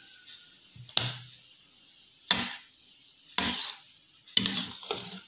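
Metal spoon mixing flour and cocoa powder into egg batter in a bowl, scraping and knocking against the bowl in short strokes about once a second, five in all.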